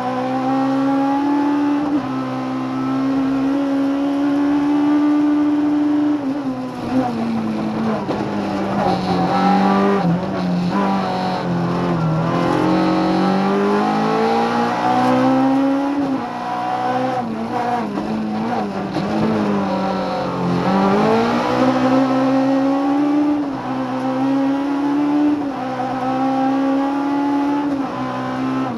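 Opel Corsa rally car's engine heard from inside the cockpit under hard driving. Its note climbs as it pulls through the gears and falls back for braking and corners, with a long drop about six seconds in and several dips past the middle.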